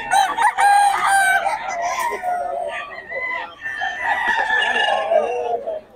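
Gamecock roosters crowing: loud crows in the first two seconds, then one long crow through the second half that falls slightly in pitch.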